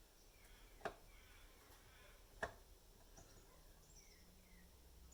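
Near silence broken by two light, sharp clicks about a second and a half apart, a screwdriver bit being tried against the screws of an induction cooker's casing. Faint short chirps sound in the background.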